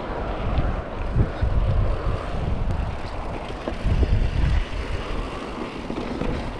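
Wind rushing over the microphone and mountain-bike tyres rolling on a dirt trail while riding. Heavier gusts of low rumble come about a second in and again around four seconds.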